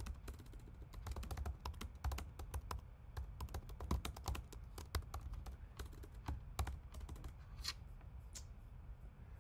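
Typing on a computer keyboard: a quick, irregular run of key clicks that thins to a few scattered taps near the end.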